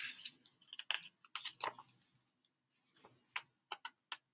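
Pages of a picture book being turned and handled: a run of faint, short paper rustles and clicks.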